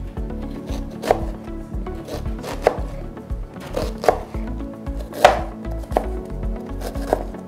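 Chef's knife chopping red onion on a cutting board: unhurried, irregular knocks of the blade striking the board, roughly one a second, the loudest about five seconds in.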